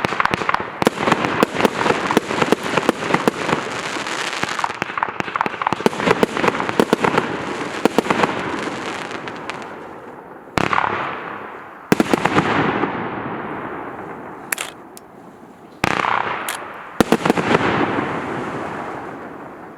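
A 60-shot 25–30 mm aerial fireworks cake firing. For the first nine seconds or so it sends up a dense run of rapid pops, then fires four separate sharp bursts, each trailing a long fading crackle, with the last fading out near the end.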